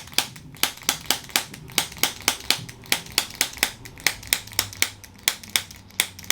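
A steady run of sharp, evenly spaced clicks or taps, about five a second.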